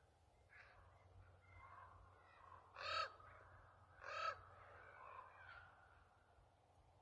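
Common ravens calling: two loud, harsh croaking calls a little over a second apart, about three and four seconds in, among several fainter calls.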